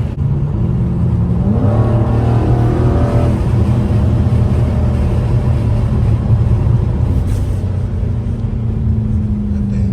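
2020 Dodge Scat Pack's 392 HEMI V8 under throttle through an exhaust with the mid muffler deleted: the engine note rises as it revs up about two seconds in, then settles into a loud steady drone.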